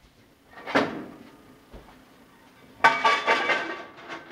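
Cast iron skillet clattering on an electric stove's coil burner: a single knock about three-quarters of a second in, then from about three seconds in a louder run of ringing metal-on-metal clanks.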